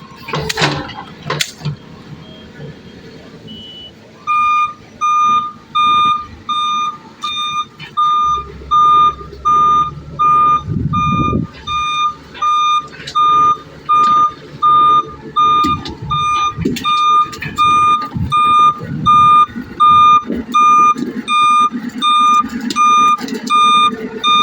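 Backhoe's reversing alarm beeping steadily, about once a second, over the low running of its engine, as the machine backs up. Two sharp knocks come near the start, before the beeping begins about four seconds in.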